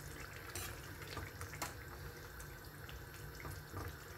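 A metal ladle stirring thick curry gravy in a pan, with faint wet squelching and a few light clicks of the ladle against the pan over a low steady hum.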